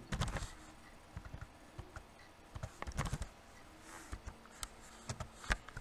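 Typing on a computer keyboard: a few short runs of key clicks with pauses between.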